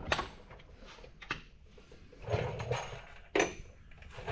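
Workshop handling noise: a few short sharp clicks, one near the start, one about a second in and a stronger one past three seconds in, with a brief low shuffle around two seconds in.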